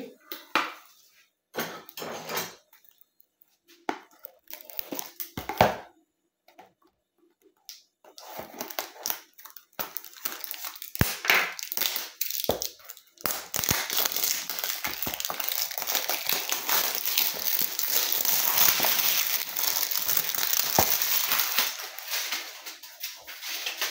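Cardboard packaging being handled and opened: a few scattered taps and rustles, then from about eight seconds in a long stretch of steady rustling and scraping as the box is worked open and its inner tray slid out.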